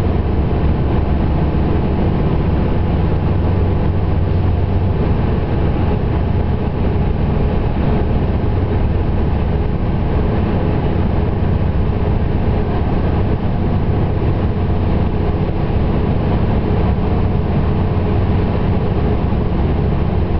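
Steady drone of an ALn 668 diesel railcar's engines pulling hard in fourth gear at close to 100 km/h on an uphill grade, heard on board, with running noise from the wheels on the track.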